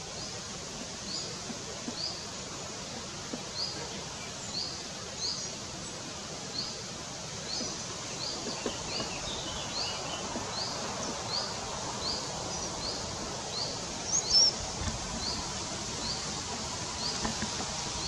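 Forest birdsong over a steady rushing background: a small bird repeats one short, high, rising chirp about every two-thirds of a second throughout, with a few other high bird notes, the loudest about two-thirds of the way through.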